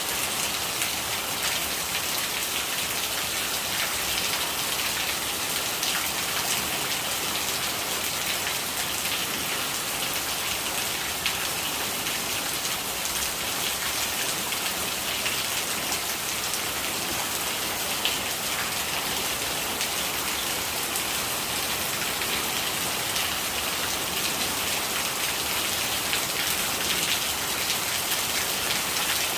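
Steady rain falling, an even hiss dotted with many small drop impacts.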